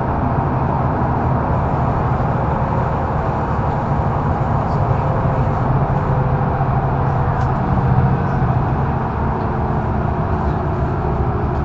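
Mercedes-Benz O530 Citaro facelift intercity bus running, heard from inside the passenger cabin: a steady low engine hum under road and running noise, with a few faint ticks.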